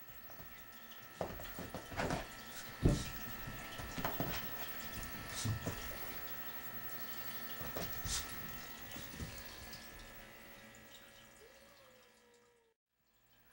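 Irregular taps, clicks and scrabbling knocks from a Shetland sheepdog puppy's front paws working at the edge of a fabric sofa, the loudest knock about three seconds in, thinning out after about nine seconds. A faint steady high tone runs underneath.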